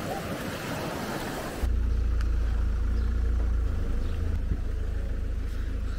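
Waves washing on a sandy shore for under two seconds, then abruptly a Ford car's engine idling with a steady low rumble, the car hitched to a caravan.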